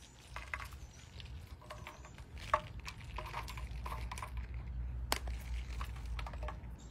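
Shredded mozzarella sprinkled by hand onto sauced bread in an aluminium foil pan, landing with scattered soft ticks and light patter, with two sharper clicks about two and a half and five seconds in. A steady low rumble runs underneath.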